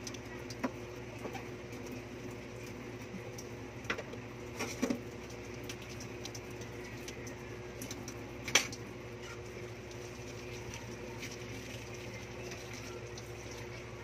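Dishes being washed by hand at a stainless-steel sink: scattered clinks and knocks of plates and bowls, the loudest about eight and a half seconds in, over a steady low hum.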